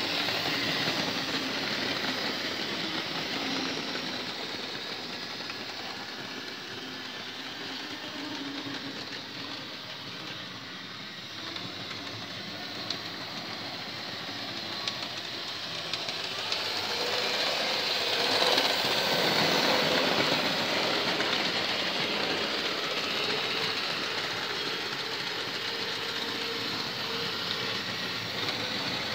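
Model railway train running on the layout track: wheels clicking over rail joints and points with the whir of a small electric motor, a steady rattle that grows louder for a few seconds past the middle.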